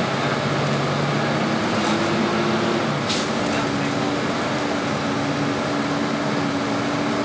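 City bus engine and drivetrain drone with road noise, heard from inside the bus as it drives along; a humming tone shifts up in pitch as it gathers speed and then holds steady. A brief hiss about three seconds in.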